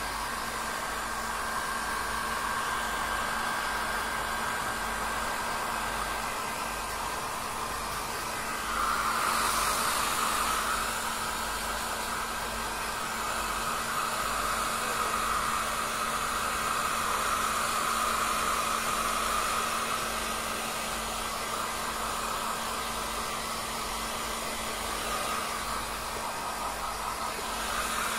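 Hair dryer running steadily, a rushing blow with a steady hum under it, louder for a while from about nine seconds in.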